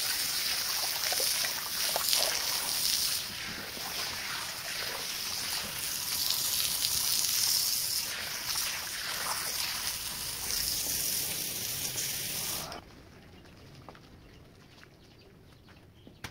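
Water spraying and splashing on a wet rug: a steady hiss that cuts off suddenly about three-quarters of the way through, leaving faint dripping and a few light taps.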